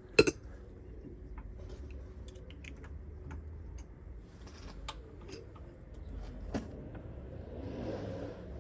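Brake pads and their metal guide clips being pushed and seated into a disc-brake caliper carrier: a sharp metallic click just after the start, then scattered light clicks and taps, with another louder click about six and a half seconds in.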